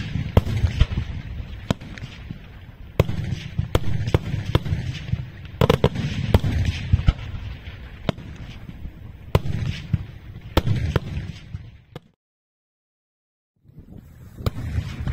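Daytime fireworks display: aerial shells bursting in a rapid, irregular string of sharp bangs over a continuous low rumble. About twelve seconds in the sound cuts to dead silence for a second and a half, then the bangs start again.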